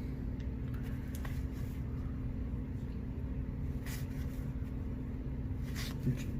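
A steady low hum in the room, with a few faint soft ticks and rustles of baseball cards being flipped through by hand.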